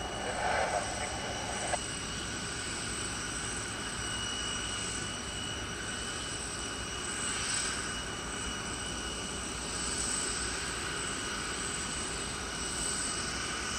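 Jet airliner engines running steadily, heard as an even rushing noise with a constant high whine that swells slightly now and then. Over the first two seconds a burst from the air traffic control radio cuts off abruptly.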